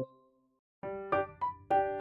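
Background music made of struck keyboard notes and chords. It breaks off at the start, is silent for about half a second, and comes back just under a second in with a new run of notes.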